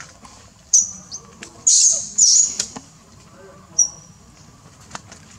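Baby macaque giving a series of short, shrill squeals, loudest and closest together in the first half, with a fainter one near the end.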